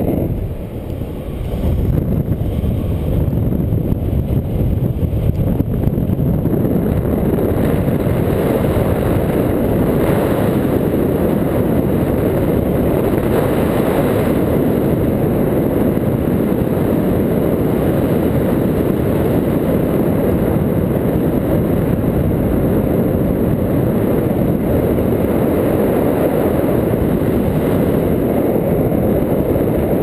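Wind rushing over an action camera's microphone in flight on a tandem paraglider: a steady, loud, low rush of air that dips briefly about a second in.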